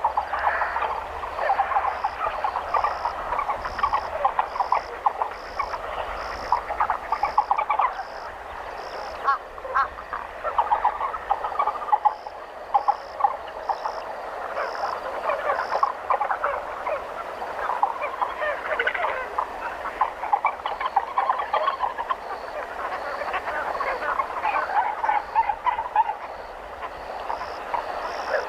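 A chorus of frogs calling: a dense, continuous tangle of rapid croaks and rattles. Over it, a high, short note repeats about twice a second, dropping out for a few seconds now and then.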